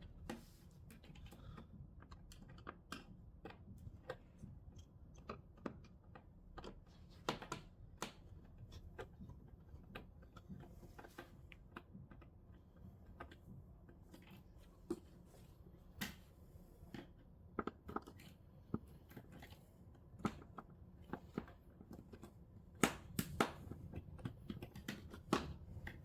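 Faint scattered clicks and taps of a screwdriver and loosened screws being worked out of a TV's plastic casing, with a short cluster of sharper clicks near the end.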